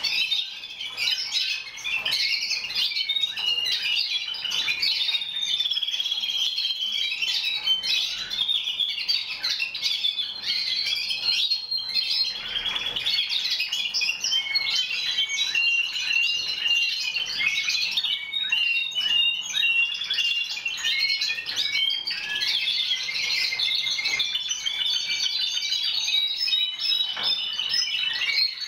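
A roomful of caged Timbrado Español canaries singing at once, many overlapping trills and chirps with no break.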